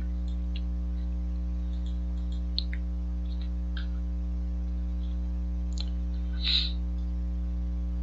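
Steady low electrical mains hum from the recording setup, with a few faint computer mouse and keyboard clicks and a brief soft hiss about six and a half seconds in.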